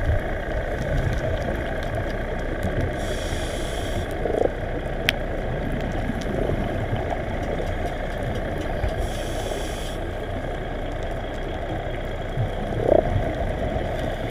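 Underwater ambience recorded by a diver's camera: a steady muffled rumble, with two short hisses about six seconds apart from the scuba regulator as the diver breathes.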